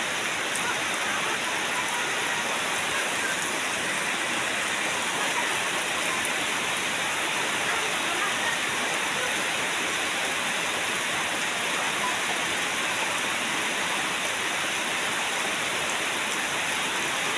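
Steady downpour of rain falling on puddled ground and leaves, an even, unbroken hiss.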